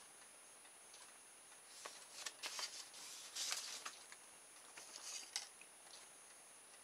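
A sheet of paper rustling and being handled as it is put down on a workbench, with small plastic parts handled, over a faint steady ticking of a clock.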